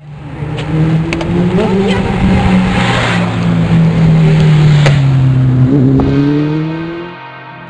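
Motorcycle engine accelerating, its pitch rising, dropping at a gear change about five seconds in, then rising again before the sound fades near the end.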